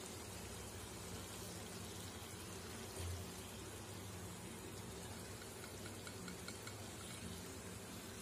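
Faint, steady sizzle of chicken and spices cooking in a pan on a low flame as whisked yogurt is poured over it, with a soft low thud about three seconds in.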